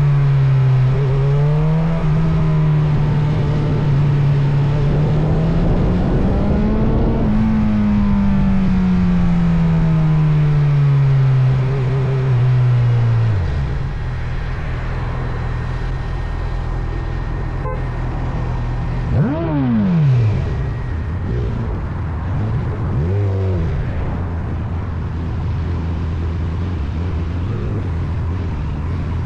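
Motorcycle engine running under the rider, its pitch climbing for several seconds, then falling away until it drops to a low steady idle about halfway through. Later, two short rises and falls in engine pitch stand out over the steady hum and a wash of wind and road noise.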